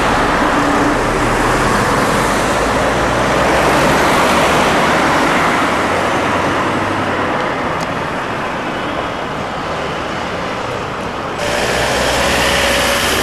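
A moving car's engine hum and road noise, heard from inside the car. The noise grows brighter and hissier suddenly about eleven seconds in.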